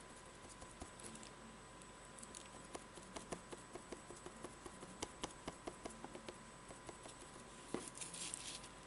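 Round foam sponge dauber dabbing paint onto a card panel: a run of soft quick taps, about three or four a second, then a brief scratchy scuffing near the end.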